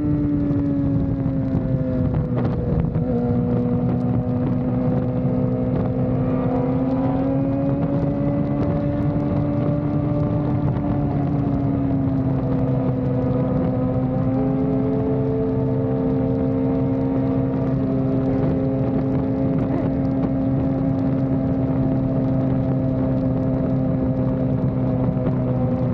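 Sport-bike engines running at a steady cruising speed, their drone rising and falling slowly in pitch, with a second engine note at a slightly different pitch joining at times. Constant wind and road rush lies under it.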